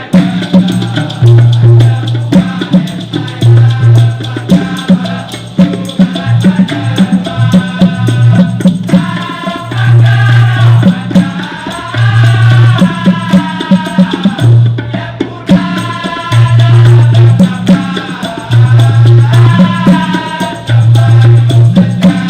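Dikir barat ensemble music: deep hand drums beat a steady rhythm that alternates between two low pitches, maracas keep shaking, and a wavering melody rises and falls above them.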